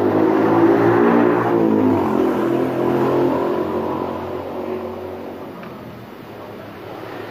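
A motor vehicle engine running close by, loudest at first and then fading away over several seconds.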